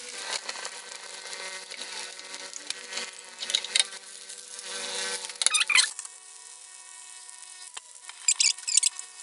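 Rava dosa frying in a nonstick pan: a sizzle over a steady hum of several tones. The spatula scrapes against the pan a few times as the dosa is lifted and turned, and the sizzle drops after the turn about six seconds in.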